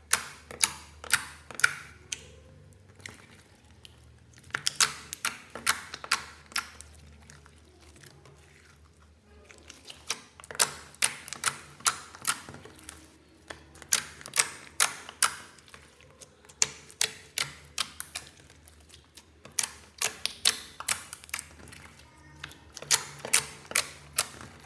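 Clear slime being pressed and poked with fingers, making sharp wet clicks and pops. They come in runs of several a second, with short pauses between.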